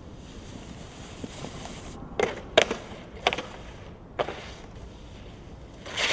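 Snowboard on a metal stair handrail: a few sharp knocks from the board on the rail about two to four seconds in. Near the end comes a louder hiss as the board slides out across slushy snow and wet pavement, over steady wind noise.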